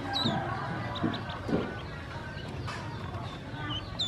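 Ducklings peeping: short, high chirps that fall in pitch, a few just after the start and a cluster near the end.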